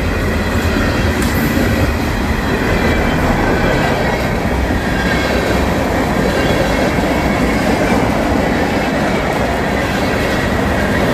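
Freight train rolling past close by: a loud, steady noise of its cars' wheels running over the rails.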